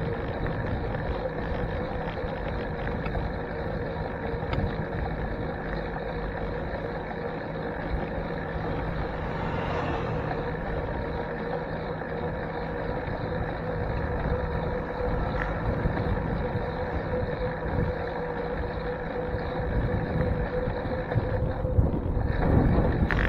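Bicycle riding noise picked up by a handlebar-mounted camera: steady tyre and road noise on city pavement, with a steady whine underneath. Near the end the whine drops away and low wind rumble on the microphone grows louder.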